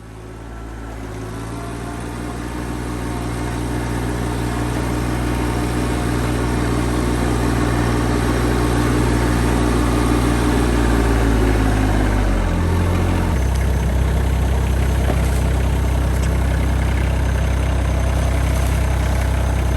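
RK25 compact tractor's diesel engine running, growing louder over the first few seconds, then dropping to a lower, steady idle about 13 seconds in.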